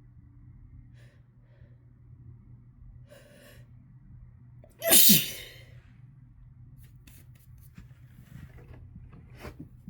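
A single loud, harsh human sneeze about five seconds in, its voice falling in pitch, set off by chhinkni sneezing powder. Faint breaths come before it and after it.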